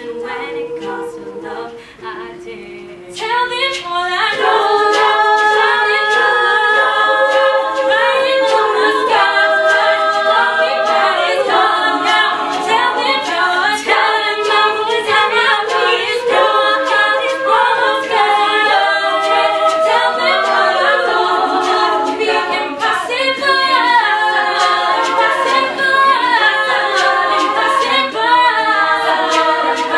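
An all-female a cappella group singing, a lead voice over layered backing harmonies. It is soft and sparse at first, then grows fuller and louder about three seconds in, with a steady rhythm of sharp clicks under the voices.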